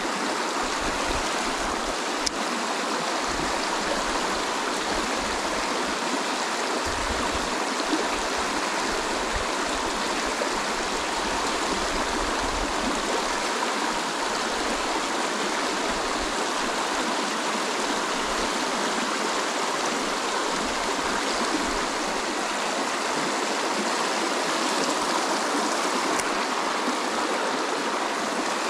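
Small rocky creek rushing over stones in shallow riffles: a steady, unbroken rush of water.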